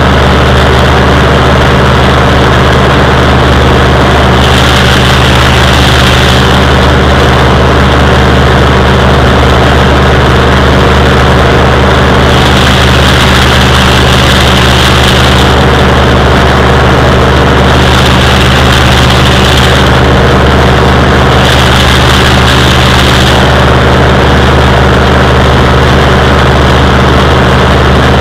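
Oliver 1955 tractor engine running steadily under heavy load, driving a Mathews MC180 stalk chopper as it shreds corn stalks. A brighter hiss rises over the engine for a second or two, four times.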